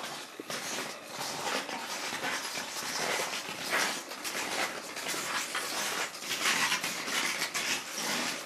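Ice crampons crunching and scraping on ice underfoot in irregular steps.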